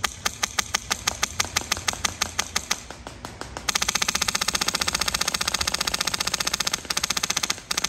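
Wolverine Airsoft MTW Forged HPA airsoft rifle firing. It fires quick single shots, about six a second, for the first three and a half seconds. Then comes a sustained full-auto burst of about four seconds, which breaks off briefly near the end.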